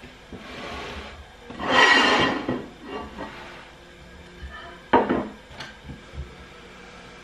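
Kitchenware handled on a countertop: a noisy sliding sound lasting about a second near two seconds in, then a sharp clack about five seconds in as a plate is set down on the counter. Soft background music underneath.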